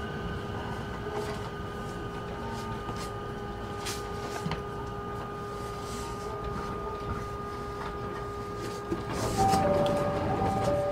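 Cabin running noise of a JR 209 series 2200-subseries electric commuter train moving at steady speed, a constant rumble with a steady electrical hum. About nine seconds in the sound gets louder, and a two-note alternating bell sounds over it.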